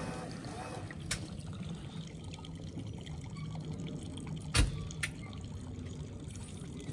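An engine idling with a low, steady rumble under water trickling and lapping, with three sharp knocks, the loudest just past halfway.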